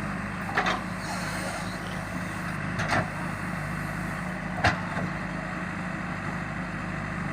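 JCB backhoe loader's diesel engine running steadily, with three short sharp knocks about a second, three seconds and nearly five seconds in.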